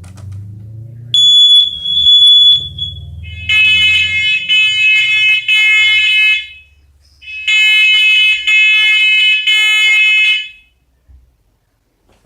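Household smoke alarm sounding on its test button: very loud, shrill beeps in groups of three with short pauses between the groups. It starts about a second in and stops shortly before the end.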